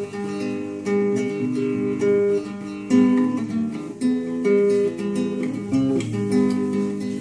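Acoustic guitar music: plucked and strummed chords in a steady instrumental passage, without singing.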